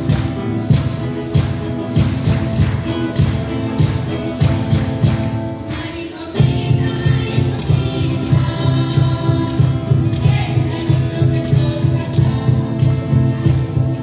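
Live Chilean folk music from a school ensemble: guitars and a tambourine keep a steady beat, with voices singing. The music thins briefly about six seconds in, then comes back fuller and louder.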